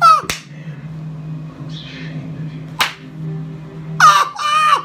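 A man screaming in excitement: a short yell that falls in pitch at the start, then a long high-pitched scream near the end. Two sharp hand smacks fall between the yells, one just after the first yell and one about three seconds in.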